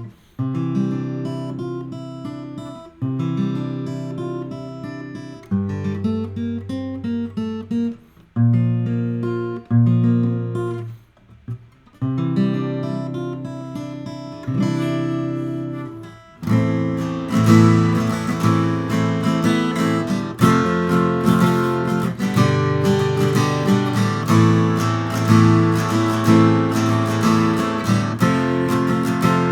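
Sigma GME+ acoustic guitar being strummed. For about the first half, chords ring out and are cut off, with short gaps between them; then from about halfway on the playing becomes continuous and fuller.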